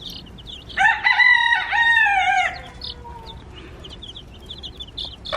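A rooster crows once, a call of about two seconds starting about a second in, over a continual patter of short high chick peeps.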